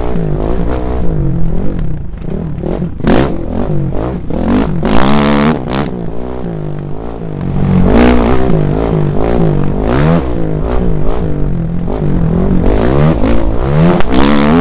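Onboard sound of an off-road race vehicle's engine at speed, revving up and dropping back again and again through the gears over rough ground. Repeated bursts of rushing, rattling noise from wind and the rough trail hit the onboard microphone.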